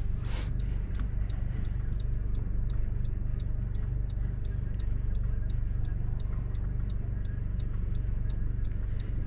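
Honda Civic Si's turbocharged four-cylinder engine running steadily at low load, heard from inside the cabin, with a turn-signal indicator ticking evenly about three times a second.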